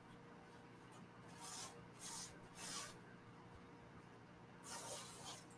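Faint rustling of an adhesive stencil transfer being pressed onto fabric and peeled off again, four soft rustles, to take some of the stickiness out of it.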